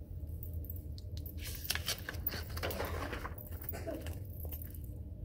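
Page of a large spiral-bound flip book being turned: a short run of paper rustling and flapping about a second and a half in, over a steady low hum.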